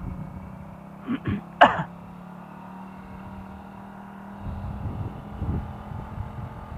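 Motorcycle engine running with a steady low hum while riding, with two short coughs about a second in. From about four and a half seconds, low uneven rumbling joins.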